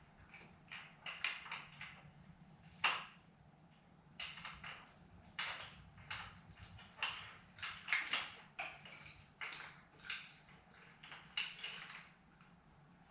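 Irregular small clicks, taps and knocks of parts and tools being handled during motorcycle assembly work, the sharpest knock about three seconds in, over a steady low hum.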